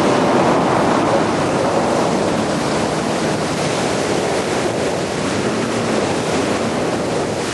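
Yamaha WaveRunner personal watercraft running across the lake: a steady rush of water and spray with wind buffeting the camera microphone. A faint engine note wavers underneath.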